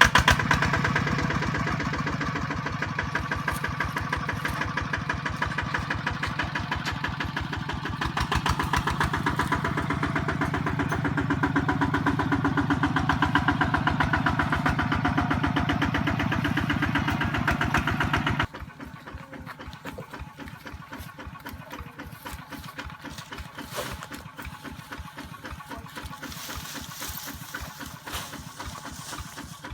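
Kubota RT155 single-cylinder diesel engine running with rapid, even firing pulses. About eighteen seconds in it suddenly becomes much quieter and keeps running at an idle.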